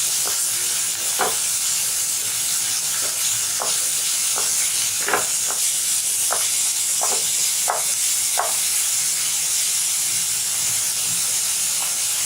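Chopped onion with coarsely ground garlic, black pepper and cumin sizzling in a little oil in a pan, with a steady hiss. It is being stirred, with about eight short scrapes against the pan in the middle stretch.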